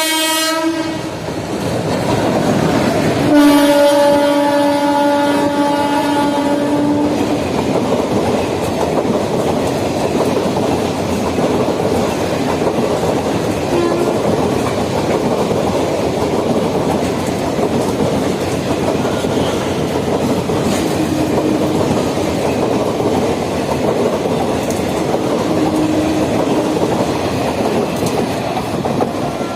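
Express train passing close by at speed: a locomotive horn blast ends just as it begins, and a second, longer blast sounds a few seconds in, then the steady rumble and clatter of the coaches over the rails.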